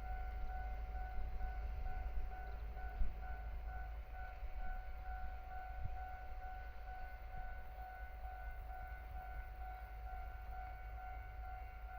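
Japanese railway level-crossing alarm ringing: a steady, rapidly repeating electronic tone, with a low rumble underneath.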